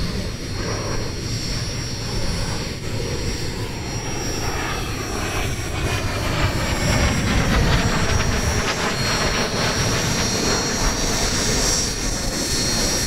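Twin Turbomeca Marboré turbojets of a Fouga CM.170 Magister in flight: a continuous jet rush with a high whine that slides down in pitch as the jet passes, a little louder in the second half.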